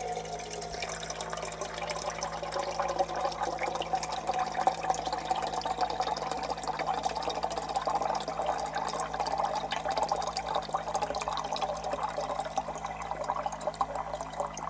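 Water pouring steadily into a Jetboil cooking cup, filling it up.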